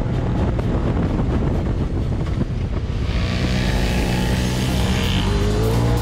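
Yamaha YZ450F single-cylinder four-stroke dirt bike engine running while riding, with heavy wind noise on the microphone. Background music comes in about halfway through.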